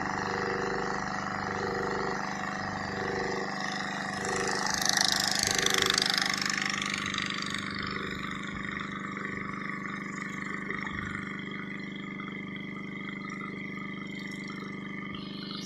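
Pumpboat engine running steadily under way, with water rushing along the hull and a louder rushing hiss about five seconds in.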